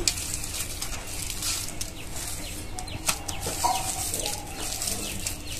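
Ripe palm fruit (taal) pulp being squeezed and kneaded by hand in a steel bowl to work it free of the fibres: a steady wet squelching and rustling with many small clicks.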